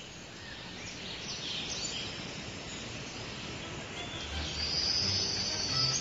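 Open-grassland ambience: a steady background hiss with birds chirping, and a high sustained trill over the last second and a half.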